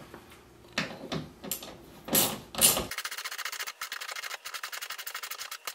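Hand socket ratchet clicking rapidly, about ten clicks a second for roughly three seconds in the second half, as it snugs a screw through a steel TV wall-mount bracket. Before that, a few scrapes and knocks of the tool and bracket being handled.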